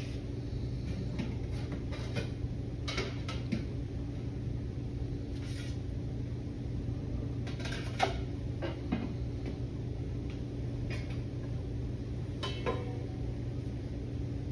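Brass trombone parts being handled: scattered clinks and knocks of metal, the sharpest about eight seconds in, over a steady low hum.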